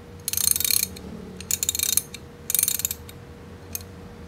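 TONE 1/2-inch drive ratchet handle worked back and forth, its pawl clicking in three quick runs of about half a second each. The ratchet sounds clear, a sign that the mechanism turns freely and works well.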